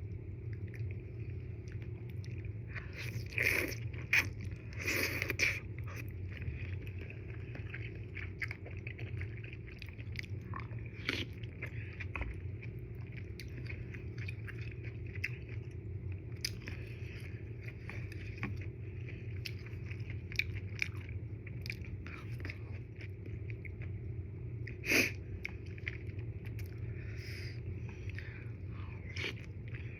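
Close-miked chewing of udon noodles: soft wet mouth clicks over a steady low hum, with a few louder mouth sounds about three to five seconds in and again near the end.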